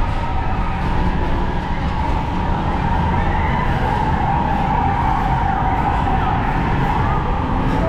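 PeopleMover ride car rolling along its track through a tunnel: a steady low rumble with a wavering high whine over it.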